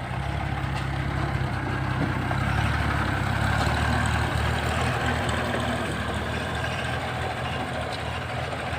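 Old Soviet ZIL truck's 5500 cc six-cylinder petrol engine running steadily, swelling a little about two to four seconds in and then easing off.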